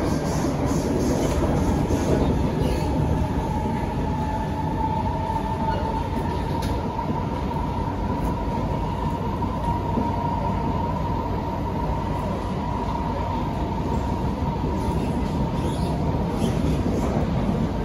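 Kawasaki & CSR Sifang C151B metro train running, heard from inside the passenger car: a steady low rumble of wheels on track with a thin, steady high whine.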